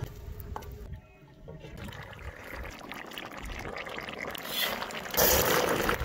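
Lamb and potato stew simmering in a cast-iron kazan over a wood fire, the broth bubbling and sloshing, with a louder rush of noise near the end.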